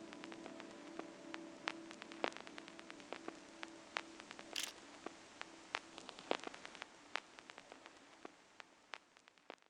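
The last track of a DJ mix fading out: a faint held tone dies away under scattered crackles and pops, then the sound cuts to silence near the end.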